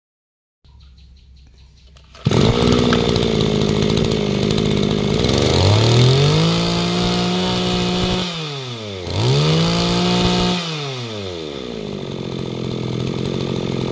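Small two-stroke brushcutter engine running, starting abruptly about two seconds in, then revved up high and back down twice.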